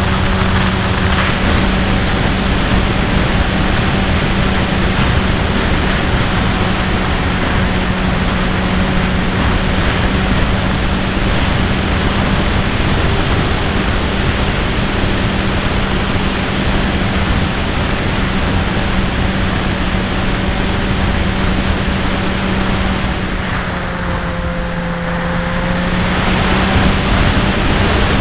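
Irvine 53 two-stroke glow engine of a Hangar 9 Pulse XT 40 model aeroplane running steadily in flight, heard through heavy wind noise on a wing-mounted camera. About 23 seconds in, the engine note sags slightly and the sound dulls for a few seconds, then picks up again near the end.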